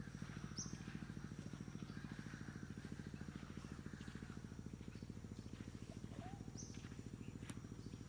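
A low, rapid, throbbing pulse that does not change, which the recordist takes for a strange birdcall. Two short high chirps come over it, one about half a second in and one near the end.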